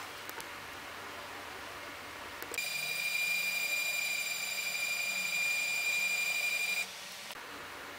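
A steady high-pitched beep-like tone, about four seconds long, starts just after a click and cuts off suddenly, over a faint hiss.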